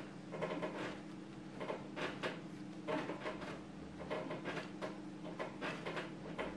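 Firm kulaç bread dough being kneaded by hand on a wooden table: a run of soft pushes and knocks, about two a second, over a steady low hum.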